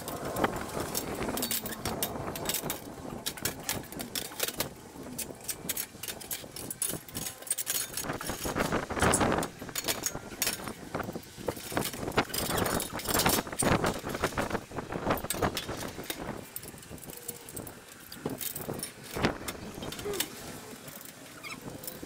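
Irregular scraping and scratching strokes against brickwork as dried ivy tendrils are removed.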